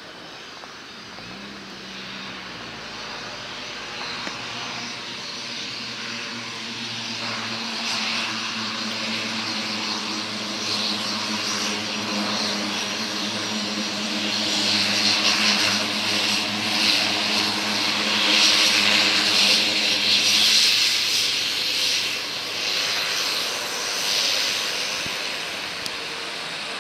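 Cessna 208B Caravan's single Pratt & Whitney PT6A turboprop taxiing past: a steady propeller hum over a turbine hiss. It grows louder as the aircraft comes close, peaking about two-thirds of the way through, then eases as it moves away.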